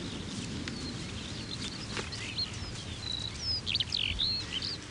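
Birds chirping: a string of short whistled notes gliding up and down, mostly in the second half, over a steady low outdoor noise.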